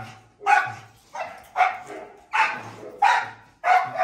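A dog barking repeatedly at a cat: six short barks, about one every 0.6 s.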